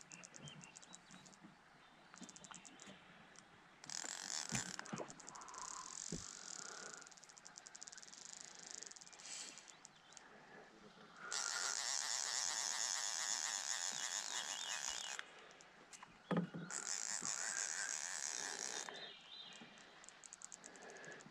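A fly reel's click-pawl drag buzzing in bursts as a hooked Atlantic salmon pulls on the line: a short burst about four seconds in, a long one of about four seconds near the middle, and another near the end, with slower clicking between them.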